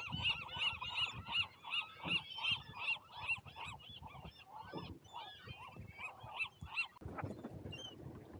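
Gull giving a long call: a rapid run of repeated yelping calls, about three a second, strongest at first and thinning out after a few seconds.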